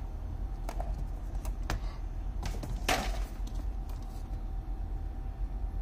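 Unboxing handling of the packaging: a few short rustles and light knocks, the loudest about three seconds in, over a steady low hum.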